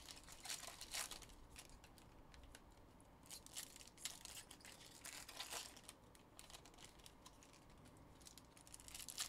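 Faint, intermittent crinkling and tearing of trading-card pack wrappers as packs are handled and opened, in short bursts several times.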